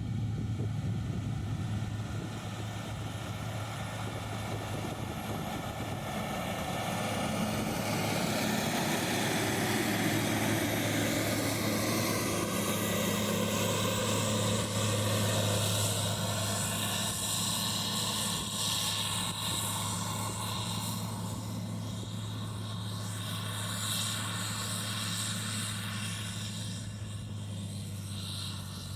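Diesel engine of heavy earthmoving machinery running with a steady low hum. The noise of the work grows louder from about a quarter of the way in and eases off again in the second half.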